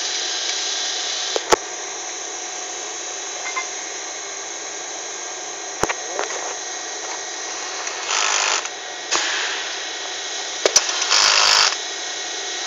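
Handheld power drill/driver running in two short bursts, about eight and eleven seconds in, driving bolts into a metal frame bracket. A few sharp clicks of metal parts being handled come between the bursts, over a steady machine hum.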